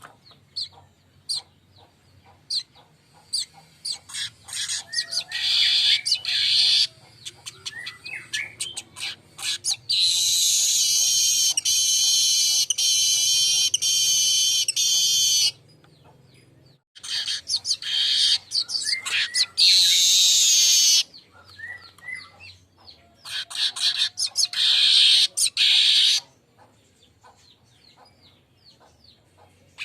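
Manyar (weaver bird) song: rapid, dry ticking chips that build into loud, wheezy sizzling buzzes, repeated several times. The longest buzz runs about five seconds, starting about ten seconds in.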